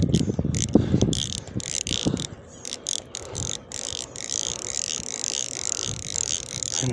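Spinning reel being cranked, its gears whirring and ticking quickly as line is wound in. There are low bumps of hand-and-rod handling during the first two seconds.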